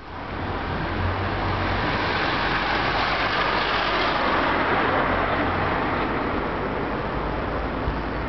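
A car going by: its noise swells to a peak around three to four seconds in and then fades, over a steady low rumble.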